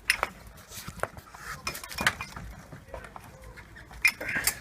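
Small hard parts clicking and clattering as they are handled, with sharp knocks just after the start, around one and two seconds in, and a quick cluster near the end.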